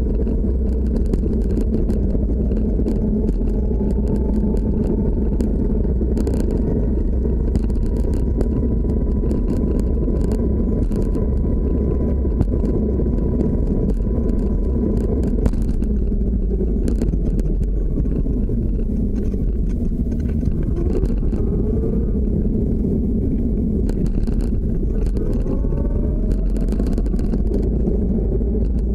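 Evolve Carbon electric skateboard on all-terrain pneumatic tyres rolling along a paved path: a steady, loud rumble of tyres and deck vibration with a few sharp knocks over bumps. A thin electric motor whine slowly rises in pitch, cuts off about halfway through, then rises again a couple of times near the end.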